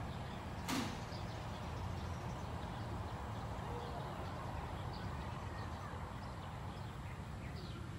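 Open-air ambience of small birds chirping here and there over a low, steady rumble, with one sharp knock less than a second in.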